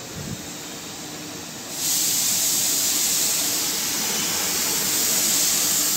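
Compressed-air paint spray gun hissing steadily as a pearl coat is sprayed over red paint. The hiss becomes much louder about two seconds in.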